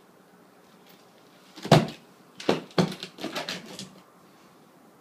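Knocks and clatter of packaging and parts being handled while unboxing: one sharp knock about two seconds in, two more soon after, then a short run of lighter clattering.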